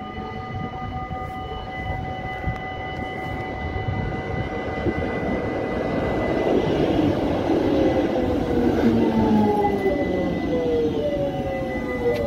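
GVB Amsterdam tram approaching and passing close, its wheels rumbling on the rails and growing louder about six seconds in. Near the end an electric whine falls in pitch as the tram slows to stop.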